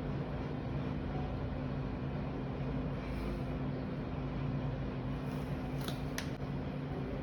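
Steady low machine hum, such as a room fan or air-conditioning unit running, with two short clicks about six seconds in.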